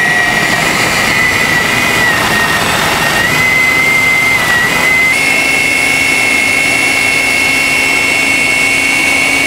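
Food processor motor running steadily, pureeing a thick batch of sweet potato hummus, with a high whine that steps up slightly about five seconds in.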